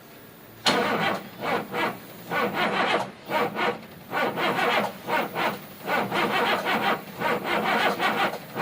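Caterpillar 950H wheel loader's diesel engine being cranked by the starter. It starts about a second in and chugs rhythmically, a few beats a second, without catching. This is a hard start, with the fuel system suspected of having run empty.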